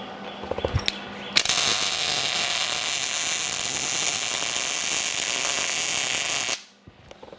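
MIG welder arc running steadily for about five seconds as it welds a hex nut onto a round steel plate, a harsh even hiss that starts suddenly about a second and a half in and cuts off sharply near the end. A few light clicks come before the arc is struck.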